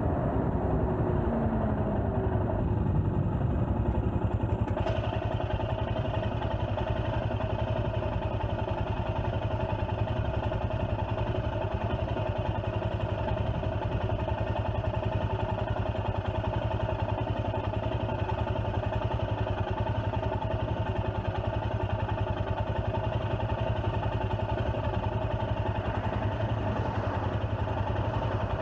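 Royal Enfield Scram 411's air-cooled single-cylinder engine as the bike slows, its revs falling over the first few seconds. It then idles steadily while stopped.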